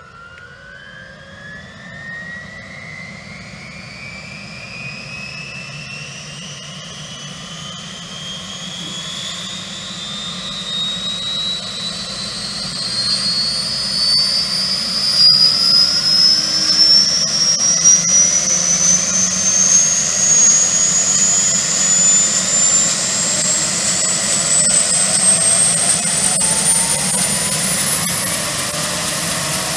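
Bell 205 helicopter's Lycoming T53 turboshaft spooling up during engine start: a high whine that rises steadily in pitch and grows louder, levelling off near the end.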